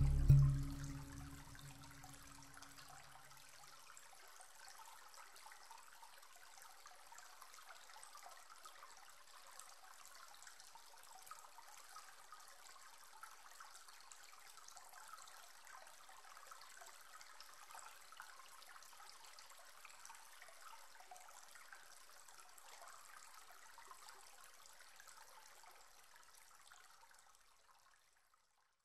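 Music fades out over the first two seconds or so, leaving a faint, steady sound of running water that fades away just before the end.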